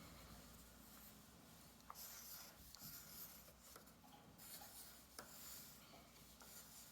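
Faint scratching of a drawing implement on paper, in a few short strokes.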